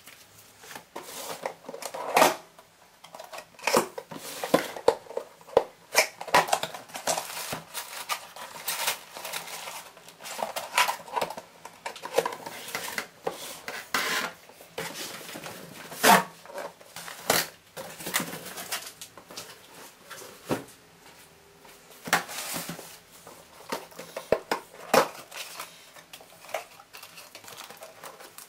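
Cardboard boxes and paper packaging being handled and set down on a tiled countertop: irregular knocks, taps and rustles.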